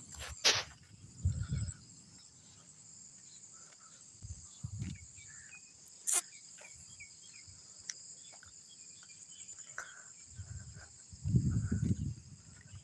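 Insects chirring steadily in high-pitched, unbroken tones. Low rumbling bumps come and go, loudest near the end, with a couple of sharp clicks.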